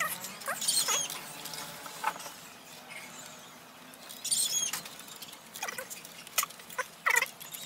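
Light clicks from a ring light's tripod stand as it is handled and extended, with a few short, high-pitched squeaky chirps in between.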